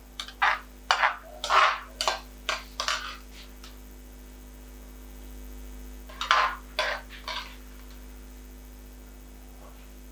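A metal utensil scraping and clinking against a steel pan as the sauced chicken shashlik is served out: a quick run of about eight short scrapes, a pause, then three or four more, over a steady low hum.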